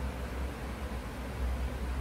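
Steady background noise: a low, unsteady rumble under an even hiss, with no distinct strokes or events standing out.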